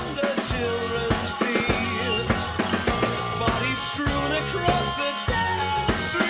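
A Gretsch drum kit playing a rock beat, with bass drum, snare and cymbal strokes over a backing track of other pitched instruments.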